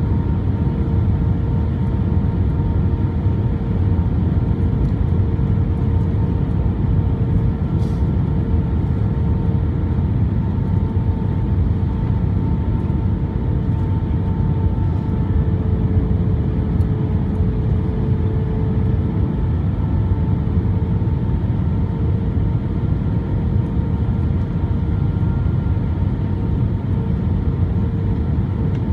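Airbus A320 cabin noise on final approach with the flaps extended, heard from a seat over the wing: a steady rumble of engines and airflow, with a steady hum running through it. A faint click about eight seconds in.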